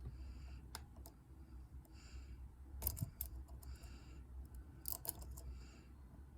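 Lock pick and tension wrench working the pins of a dimple-lock Euro cylinder: faint metallic scraping with several sharp little clicks, a pair about three seconds in and another pair about five seconds in, as the pins are probed and set.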